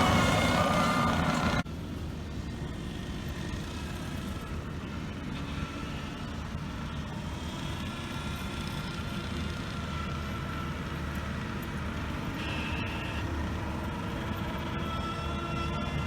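Skid steer engine running under load while grading. It is loud for the first second and a half, then cuts abruptly to a quieter, steady running sound. A single short beep comes about three-quarters of the way through.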